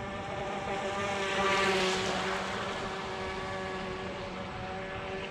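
Proboat StealthWake deep-V RC boat's brushed electric motor whining at speed on a 2S LiPo, with a hiss of spray from the hull. It swells as the boat passes, loudest about two seconds in, then eases off.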